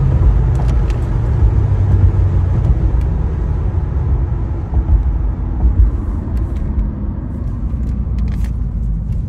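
A 1995 Chevrolet Impala SS's LT1 V8 and road noise, heard from inside the cabin as the car slows from about 70 mph to about 30. The low engine drone falls in pitch and the sound grows a little quieter. A few light clicks come in the second half.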